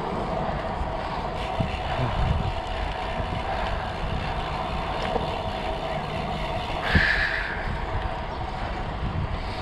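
Wind rushing over the microphone of a camera on a moving road bike, with the steady hum of the bike's tyres rolling on the path. A short higher-pitched sound with a click about seven seconds in.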